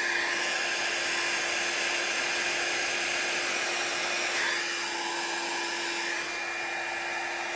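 Revlon 500-watt styling-brush hair dryer running, a steady rush of air over a constant motor hum. It eases off slightly about halfway through.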